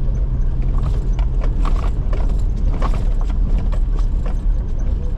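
A car driving slowly over a rough track, heard from inside the cabin: a steady low engine and road rumble with frequent short knocks and rattles.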